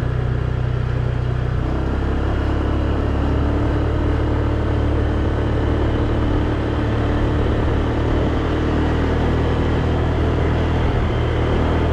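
Motor scooter engine running steadily at cruising speed, with wind rushing over the microphone as the scooter rides along.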